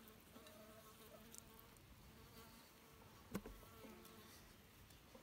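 Faint buzzing of a flying insect hovering close by, with a single sharp knock about three seconds in.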